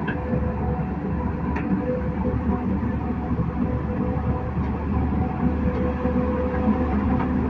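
Heavy diesel engine running steadily with a constant low drone and hum.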